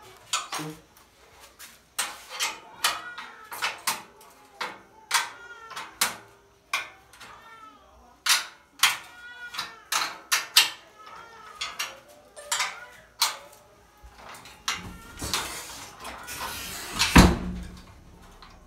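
Steel frame pieces of an industrial sewing machine stand clinking and knocking as they are fitted and bolted together: many separate sharp strikes, several with a short ring after them. Near the end comes a rush of scraping noise and one heavy thump.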